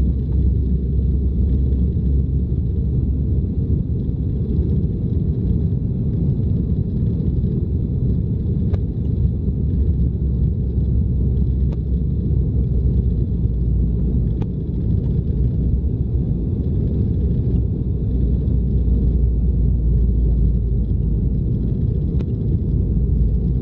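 Steady low rumble of an airliner cabin on approach to land, engine and airflow noise heard from inside, with a faint steady high whine and a few faint clicks.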